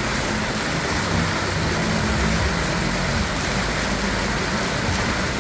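Fountain jets splashing into stone basins: a steady rush of falling water, with a low steady hum underneath.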